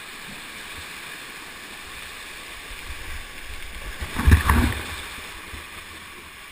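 Water rushing down a canyon waterfall chute in a steady hiss. About four seconds in comes a loud splash and churning of water as a canyoner slides into the pool below.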